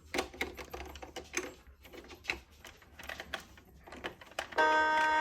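Irregular plastic clicks and knocks as batteries and the battery cover are fitted into a Kawasaki Sax-A-Boom toy saxophone; about four and a half seconds in, the toy's electronic sax voice sounds a loud held note, the start of its music now that it has power again.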